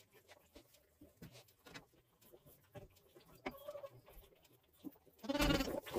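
Newborn Dexter calf suckling from a bottle, faint soft sucking clicks. About five seconds in, a louder animal call comes in.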